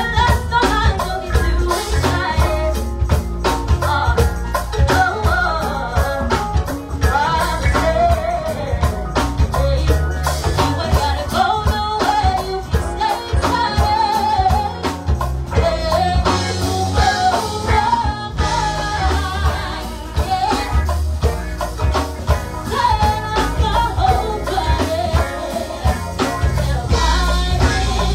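Live go-go band playing: drum kit and congas keep a steady, dense beat under bass guitar, with singing over it.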